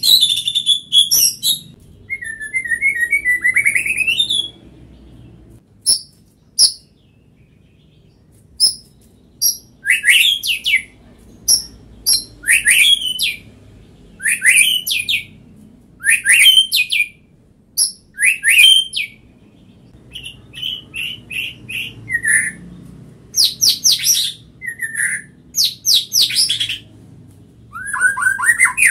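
White-rumped shama (murai batu) singing: one short, loud phrase after another of quick rising whistles and sharp high notes, each about a second long, with a brief lull a few seconds in.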